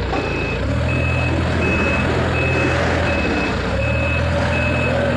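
Forklift reversing alarm beeping steadily, about one and a half beeps a second, over the low hum of the forklift running; the hum drops away briefly about three seconds in.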